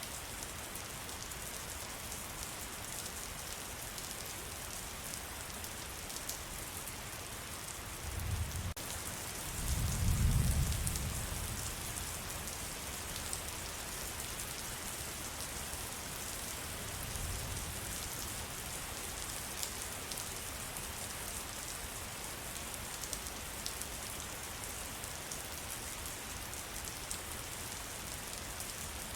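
Steady rain falling in a forest: an even hiss with the patter of drops. A low rumble swells briefly twice, about eight and ten seconds in, and once more faintly later on.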